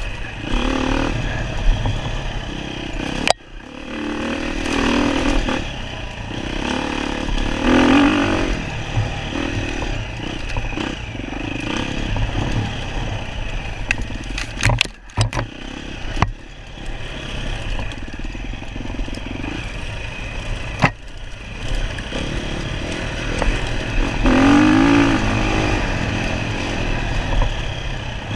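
Dirt bike engine revving up and down as it is ridden in an enduro, with rattling clatter over it. The engine note cuts out briefly about three seconds in and again around fifteen seconds.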